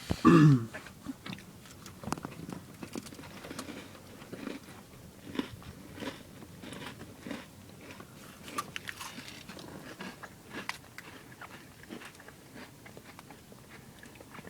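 Crunchy snacks (Cheetos and crackers) being bitten and chewed close to the microphone inside a car, a scatter of small crisp crunches. Right at the start comes a short, loud cry that falls in pitch.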